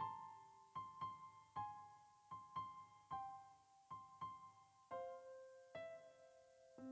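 Quiet piano background music: a slow melody of single notes, each struck and left to fade.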